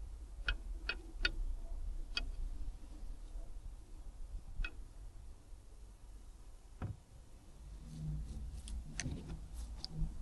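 Scattered sharp clicks and light taps, a second or more apart, from hand tools handled against metal, over a faint low rumble.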